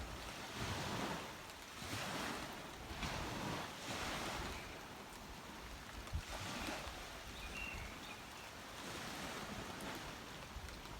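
Small waves washing onto a beach, a steady surf wash that swells and eases every second or so.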